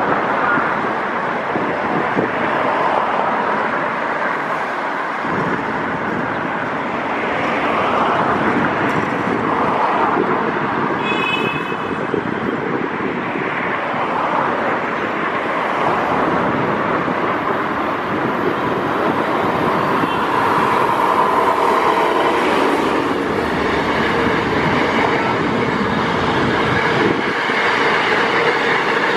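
DF4B diesel-electric locomotive hauling a passenger train, running steadily as it approaches and passes, followed by its coaches running by over the rails.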